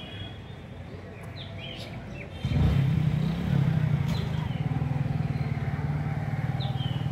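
A motor engine starts running steadily and loudly about two and a half seconds in, a low even drone, with a few short bird chirps over it.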